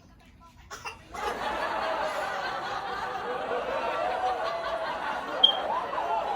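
Several people laughing and chattering over one another, starting about a second in, with one sharp click about two-thirds of the way through.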